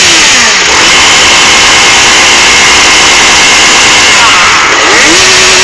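Single-cylinder motorcycle engine revved hard and held at high revs, so loud that it overloads the phone microphone, with a brief dip and a second run-up near the end.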